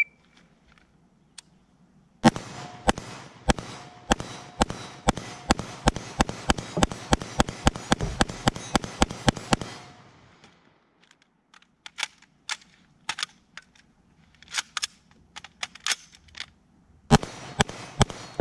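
AR-15 carbine firing a rapid string of about thirty shots at roughly four a second. After a pause with scattered clicks and knocks of rifle handling, a few more shots come near the end.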